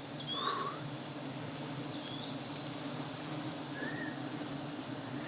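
Forest insects keeping up a steady high-pitched trill, over a low steady hum, with a few short bird chirps scattered through.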